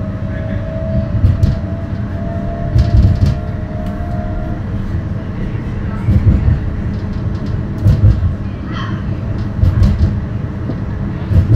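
Streetcar running between stops, heard from inside the car: a steady low rumble of steel wheels on rail with heavy low knocks every second or two. A thin whine from the drive rises slowly and stops about four and a half seconds in.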